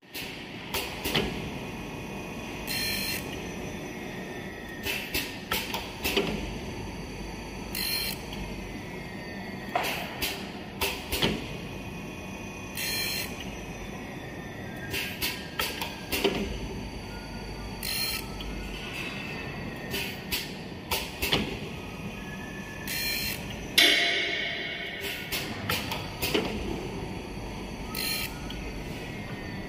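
Automatic double-head saw blade sharpening machine grinding a carbide-tipped circular saw blade: a steady motor hum with a repeating work cycle about every five seconds, each cycle bringing a short hissing burst and a run of clicks and knocks. About four-fifths of the way through comes a louder knock with a ringing tail.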